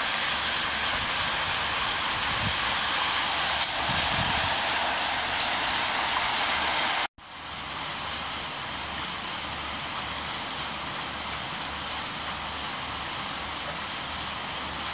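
Steady rush of water at a giant cedar breastshot waterwheel. The sound cuts out for an instant about halfway and comes back somewhat quieter.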